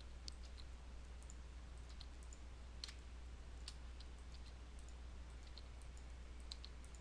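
Faint, irregularly spaced clicks of a computer mouse and keyboard keys, a dozen or so, over a steady low hum.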